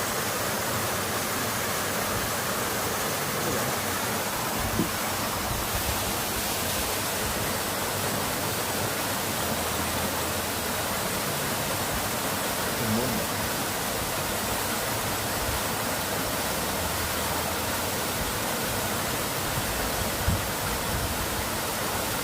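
Running water rushing steadily, an even unbroken wash of sound.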